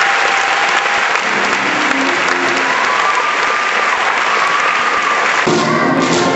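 Audience applauding, with music starting about five seconds in.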